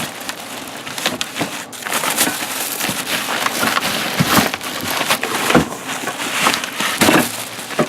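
Cardboard packaging being pulled apart and crunched, with scraping and knocking as the saw's rip fence is worked free of the box.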